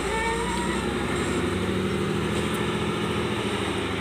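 Diesel engine of a 12-wheel cargo truck loaded with logs, running under load as the truck pulls slowly forward over a dirt track.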